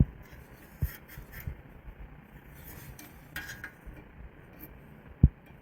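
Light handling noise as the inspection gear is worked around the furnace's sheet-metal: a soft knock about a second in, a short scrape and clink in the middle, and one sharp knock near the end, the loudest sound.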